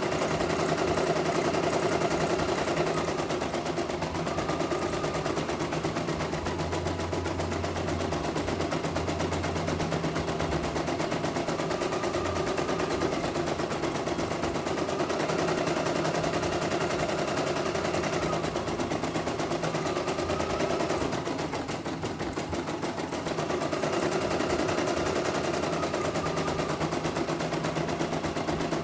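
CNY E900 computerized embroidery machine stitching: the needle runs in a fast, steady clatter as the hoop carriage moves the fabric, with a motor hum that changes pitch every few seconds.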